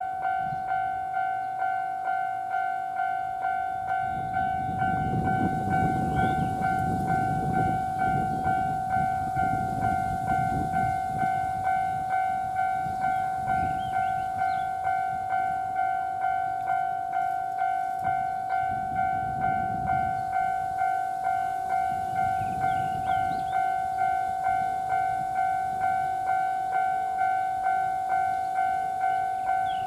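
Japanese railway level-crossing warning bell ringing in an evenly spaced series of metallic dings, signalling that a train is approaching. A low rumble rises and falls underneath it twice.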